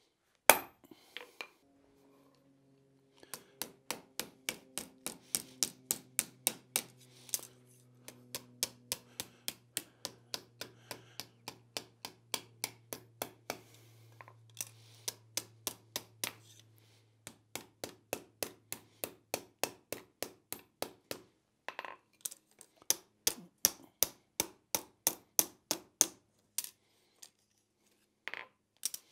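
A single hard hammer blow on a touch-mark stamp marks the hot steel hinge blank on the anvil. A hand hammer then strikes metal on the anvil in quick runs of about three blows a second with short pauses, curling the hinge blank's hot end into the eye. A low ringing hum lingers under the first half.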